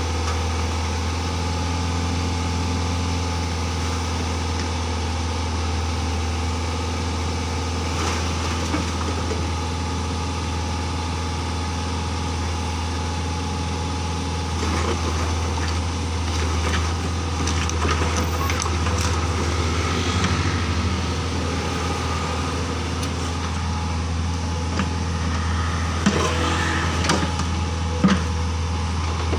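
Mini excavator engine running at a steady idle, with a few sharp knocks near the end.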